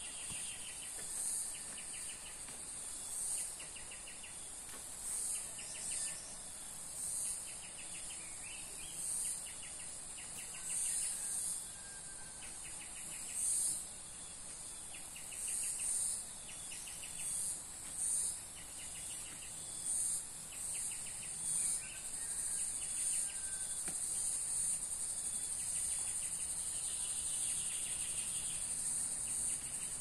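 Insects chirping: a steady high-pitched buzz with short, buzzy trills repeating every second or two. The high buzz swells and turns steady about two-thirds of the way in.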